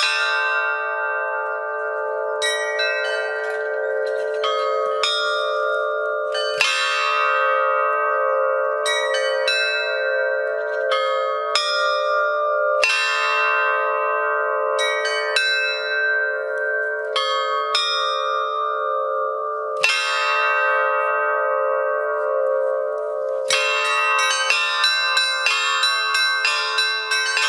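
Bells ringing: many pitched strikes, each left to ring on, coming in quick flurries at the start and again near the end, with sparser strokes between.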